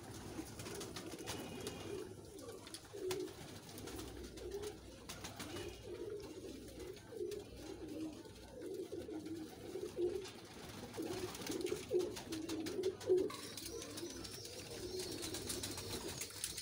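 A flock of domestic pigeons cooing, many low coos overlapping without a break, with scattered sharp clicks of beaks pecking at food on a tray.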